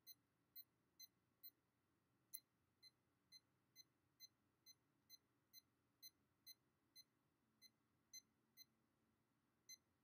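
Tamagotchi P1 virtual pet beeping faintly at each button press, short high beeps about two a second, as its clock is stepped forward. A single sharper click comes between two and three seconds in.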